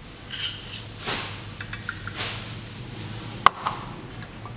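Palm sugar tipped and tapped out of a stainless steel measuring cup into a steel mixing bowl: brief scraping and rustling with small metallic ticks. About three and a half seconds in, one sharp metal clink from the nested measuring cups or the bowl rim.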